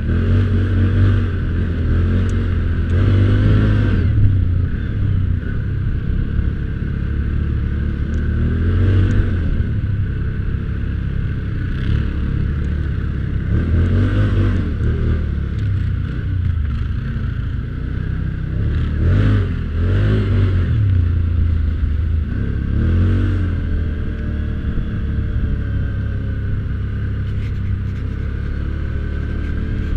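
Can-Am 1000 XT ATV's V-twin engine running on the move, revving up and easing off every few seconds as the throttle is worked, steadier over the last few seconds.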